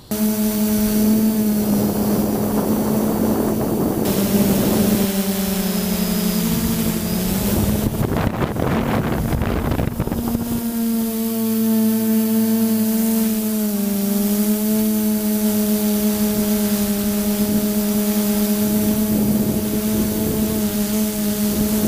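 Multirotor drone's electric motors and propellers humming steadily, heard from a camera on the aircraft; the pitch wavers briefly as the throttle changes. A loud rush of noise, as of wind on the microphone, runs from about eight to ten seconds in.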